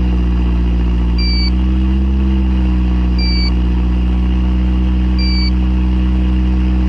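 Mazda Miata engine idling steadily, with a portable carbon monoxide detector's alarm giving a short, high beep about every two seconds, three times. The beeping signals carbon monoxide from the exhaust above the detector's 50 ppm alarm level.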